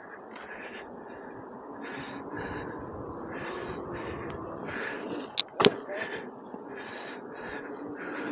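Heavy, hard breathing in short hissy puffs about once a second after exertion. Two sharp knocks come in quick succession about five and a half seconds in.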